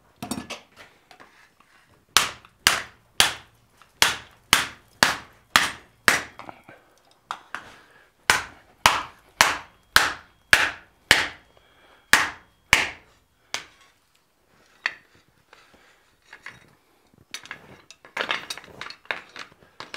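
Rawhide mallet striking red-hot folded sheet steel on an anvil, about two blows a second for some twelve seconds with one short pause, each blow ringing briefly. Near the end come a lone knock and then lighter clattering of tools and metal.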